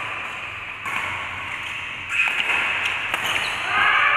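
Badminton rackets striking a shuttlecock during a doubles rally: about three sharp hits, roughly a second apart.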